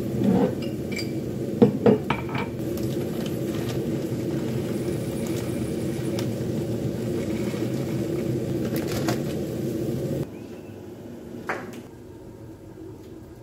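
Kitchen handling sounds: pots, lids and utensils knocking and clinking a few times over a steady hum, which stops suddenly about ten seconds in.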